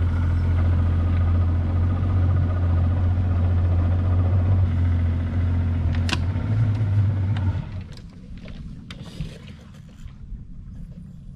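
Small outboard motor on a Gheenoe skiff running steadily at low speed, then cut off about eight seconds in, leaving only a few light knocks and water sounds as the boat glides into shallow water.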